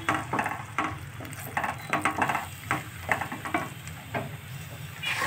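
Wooden spatula stirring and scraping tomato purée and fried onions around a steel kadhai in quick, uneven strokes, over the sizzle of hot oil. The strokes stop about four seconds in.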